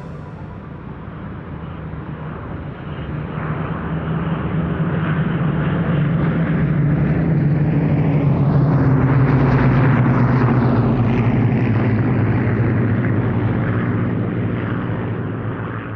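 Propeller-driven aircraft flying past, its engine drone swelling to a peak about ten seconds in, falling in pitch as it passes, then fading away.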